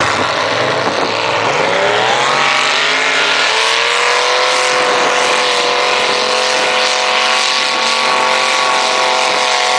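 Lifted 4x4 truck's engine revving up over a few seconds, then held at steady high revs as the truck ploughs through a deep mud pit.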